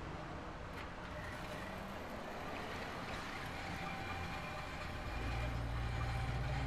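A car engine running with a steady low rumble that grows heavier and louder about five seconds in.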